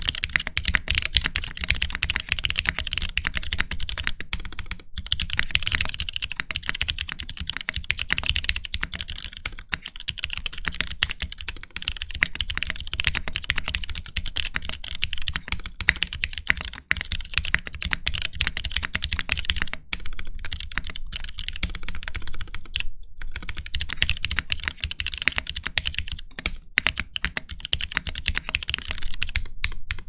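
Fast, continuous typing on a Geonworks F1-8X tenkeyless custom keyboard with lubed Gateron Clear linear switches on a gasket-mounted aluminium leaf-spring plate: a dense run of keystroke clacks, with a couple of brief pauses.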